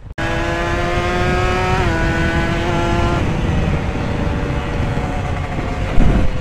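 Motorcycle engine held at a steady high pitch while riding, dipping slightly about two seconds in and dropping away after about three seconds. Heavy wind rush buffets the microphone throughout, and a loud thump comes near the end.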